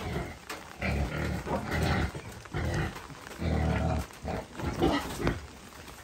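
Pigs grunting, with a longer run of low grunts about a second in and another about halfway through, and shorter grunts between and after.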